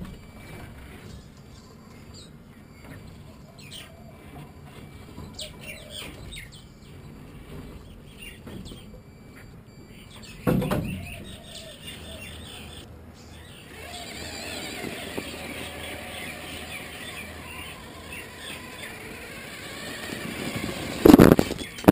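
1/14-scale MAN RC crawler truck's electric motor and gears whining as it drives, growing louder as it comes close toward the end. There is a loud knock about halfway through and a louder thump near the end, and birds chirp faintly in the first half.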